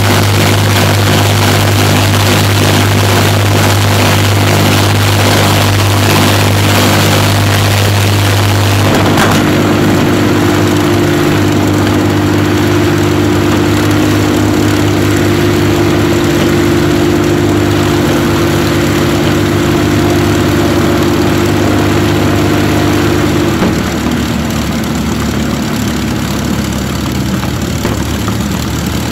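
Rolls-Royce Merlin V12 aero engine running on its test stand with the propeller turning. The engine note changes abruptly about nine seconds in, and again about two-thirds of the way through, where it becomes a little quieter.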